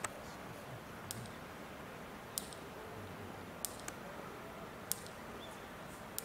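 Electric fence energiser pulses: sharp, faint ticks about every second and a quarter over a steady background hiss.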